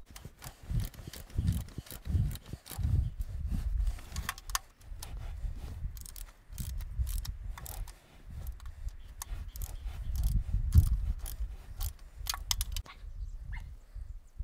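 Ratchet wrench on a socket extension clicking in quick irregular runs, with knocks from the tool, as the oil pan bolts are tightened to torque after a new oil pan gasket is fitted.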